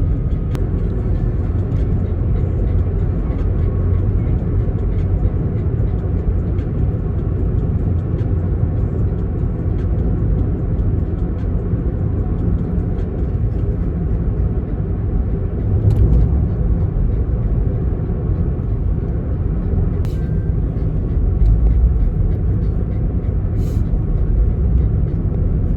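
Steady low rumble of car road and engine noise heard from inside the moving car's cabin.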